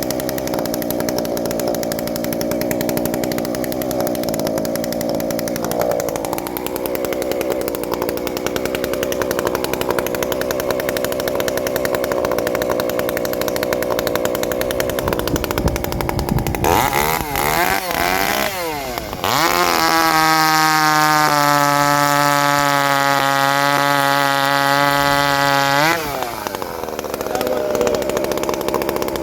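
Ported Shindaiwa 390sx chainsaw engine running at low speed. About 16 seconds in it is revved up and down a few times, then held flat out at a steady high pitch for about six seconds before dropping back, with the high-speed carburettor jet being set.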